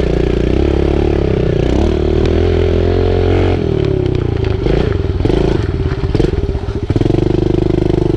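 Kawasaki KLX110 pit bike's small four-stroke single-cylinder engine running under throttle, its pitch rising and falling as the rider works the throttle over dirt, with a few sharp knocks along the way. Near the end it settles to a steady, low, even running.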